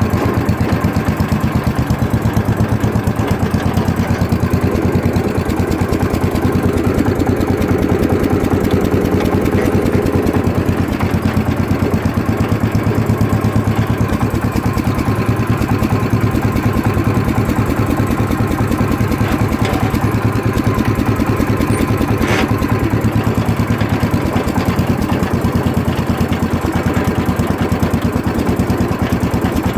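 Wheel Horse Raider 10 garden tractor's engine running steadily with a rapid even putter while the tractor is driven slowly across a lawn.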